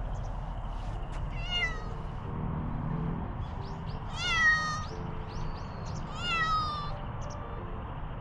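Siamese cat meowing three times, each call dropping in pitch; the middle one, about four seconds in, is the loudest and longest.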